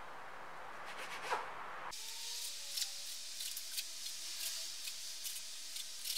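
Plastic bench scraper pressing through soft dough and scraping against a plastic cutting board, in a series of short strokes.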